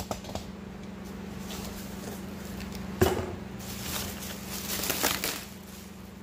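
Crinkling and rustling of the plastic wrapping around a new clutch disc as it is pulled open in its box, with a single knock about halfway through. A steady low hum runs underneath.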